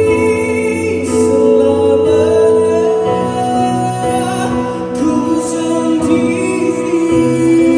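Live ballad played on a Yamaha electronic keyboard, with a man singing long held notes over it.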